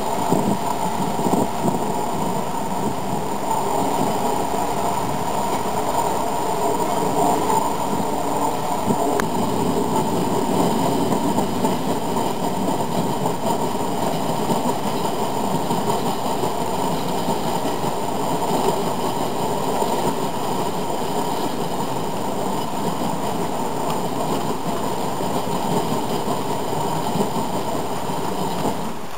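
HO scale model coal train of hopper cars rolling steadily past, its small metal wheels running on the track with a continuous rolling rattle.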